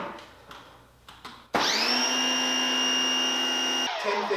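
Portland 1750 electric pressure washer's motor and pump starting up suddenly with a quick rising whine, running steadily for about two seconds while spraying through a 2.6 nozzle, then stopping.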